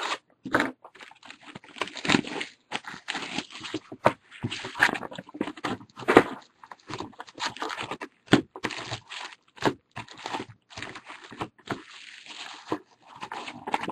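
A sealed box of baseball card packs being unwrapped and opened: plastic wrap and cardboard torn and crinkled in a long run of irregular crackling, tearing noises.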